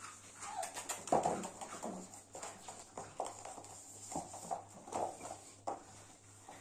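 Corgi puppy's claws clicking and scrabbling on a hard floor as it scampers about and tugs at a rope toy, with a few brief pitched sounds among the clicks.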